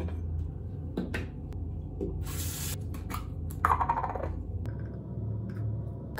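Bathroom sink mixer tap worked by hand, with a short rush of water about two seconds in. Then small clicks and rubbing as an electric toothbrush and toothpaste tube are handled, over a steady low hum.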